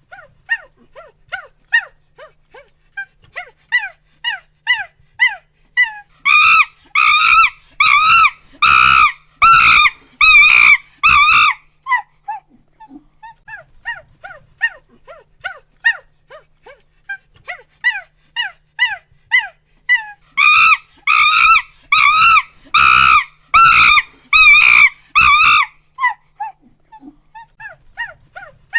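Monkey calling in a repeating sequence: rapid short hoots that build into a run of loud, harsh screams less than a second apart, then ease back to short hoots. The cycle happens twice.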